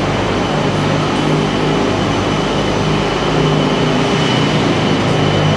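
Aerial tramway running: a loud, steady mechanical hum and rumble with a faint high whine above it.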